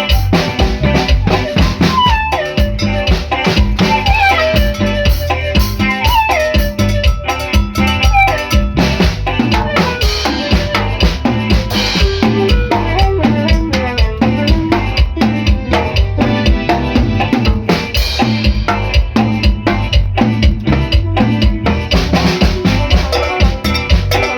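Drum kit playing a steady, fast rhythm with bass drum, snare and rimshots, under a keyboard melody and a bass line.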